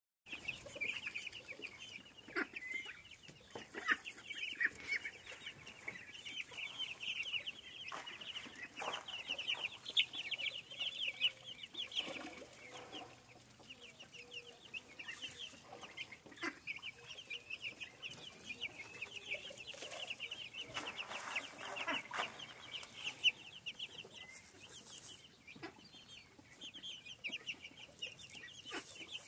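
A group of young Cornish Cross meat chicks peeping without a break, many quick high peeps overlapping, with some soft rustling in the straw bedding.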